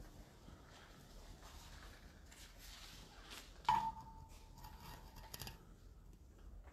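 Quiet room tone with faint rustling. About four seconds in, a single clear tone starts sharply, slides briefly down in pitch, and holds for about a second and a half.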